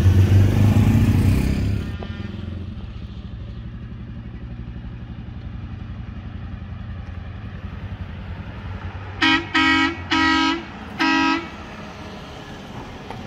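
A motor vehicle's engine running loudly and close by, dropping away about two seconds in to a low rumble. About nine seconds in, a vehicle horn honks four times in quick succession; the third blast is the longest.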